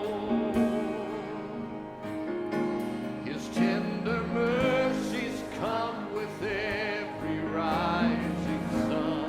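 Gospel music playing, with a singer's voice wavering with vibrato over steady instrumental backing.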